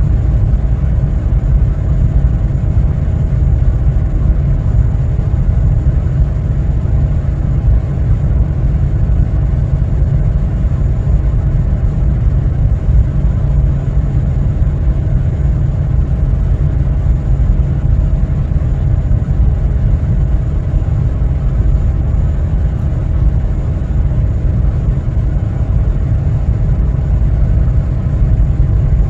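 Container ship under way, its engines making a steady low rumble with a faint steady hum above it.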